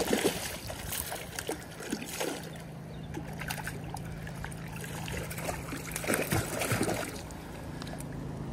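Hooked rainbow trout thrashing at the surface of a river, splashing in several short bursts, the strongest right at the start and again about six seconds in, over the steady wash of moving water.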